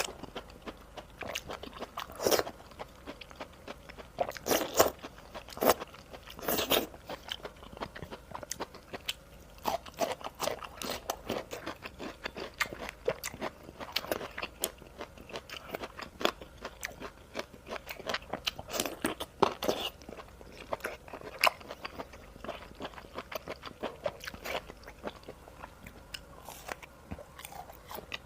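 Close-miked mukbang eating: a person biting and chewing food, with irregular crunchy, wet mouth clicks and a few louder bites spread through.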